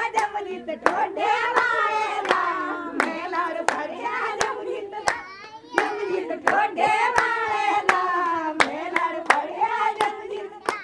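Women singing a song with sharp hand claps keeping time, the claps coming roughly one or two a second.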